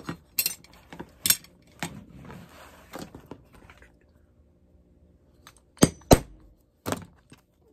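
Small metal tools clicking and clinking as they are handled on a workbench, then a hammer striking a hand hole punch three times to punch a hole through leather, the blows coming about six seconds in, the second the loudest.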